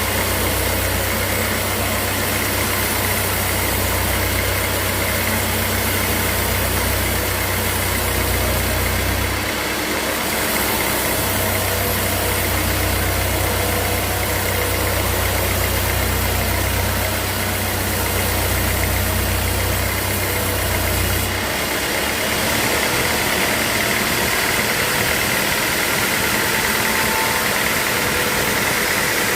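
Sawmill machinery running steadily, with a constant high tone. A deep low hum under it cuts out a little over nine seconds in, comes back about a second and a half later, and stops for good a little past the middle.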